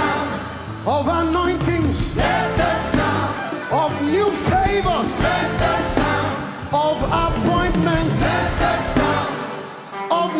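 Live gospel worship music: a band playing under sung voices that glide and hold long notes, dipping briefly near the end.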